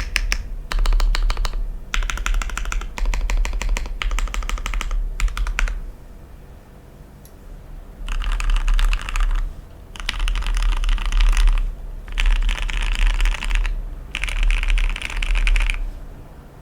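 Typing on a mechanical keyboard: an Arisu (Alice-layout clone) in a matte black acrylic sandwich-mount case, with Krytox 205g0-lubed Gateron Black linear switches in milky top housings and ePBT keycaps. Steady runs of keystrokes for about six seconds, a pause of about two seconds, then four short bursts of rapid typing.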